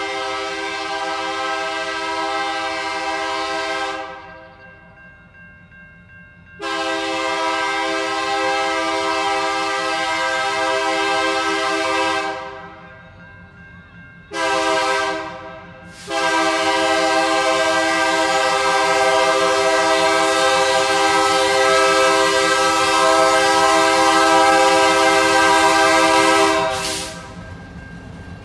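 Diesel freight locomotive's multi-note air horn blowing the standard grade-crossing signal: two long blasts, one short, then a final long blast that cuts off a second or so before the end. A steady low rumble from the approaching train runs underneath.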